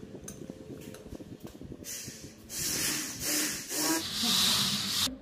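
Quiet rubbing and handling of plastic pipe fittings on a concrete floor, then about two and a half seconds of loud hissing in several surges that cuts off suddenly.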